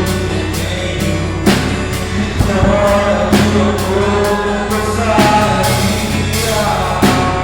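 Live worship band: a man singing over acoustic guitar and a drum kit, with drum and cymbal hits about every second, recorded through a phone's microphone.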